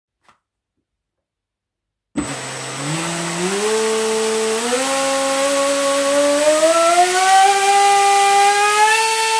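Leopard 2550KV brushless motor spinning a 6x6 Graupner CAM Speed propeller on a 6S lipo: it starts up about two seconds in and its pitch climbs in steps as the throttle is advanced, with a steady high whine over it. This is a static run-up for measuring the current draw.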